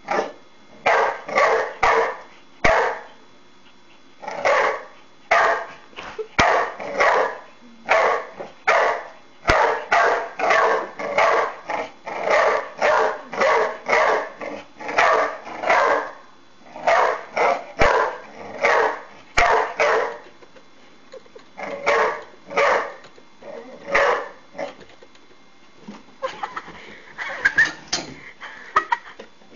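A dog barking over and over at a cat, sharp single barks about one to two a second with short pauses between runs. The barking thins out near the end.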